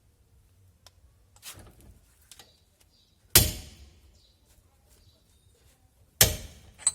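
Two sharp metallic knocks about three seconds apart, with lighter clicks of metal tools between them. The second knock is followed by a brief high ringing.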